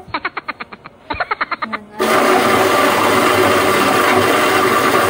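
A rapid stuttering pulse, about ten a second, for the first two seconds. Then an electric blender starts and runs steadily, blending a milky gulaman drink.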